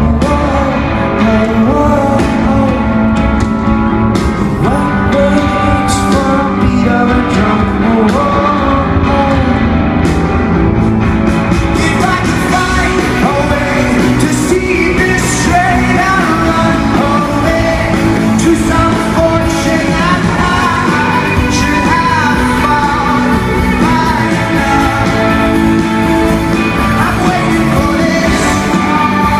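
Rock band playing a song live, with a lead singer over the band, loud and steady throughout.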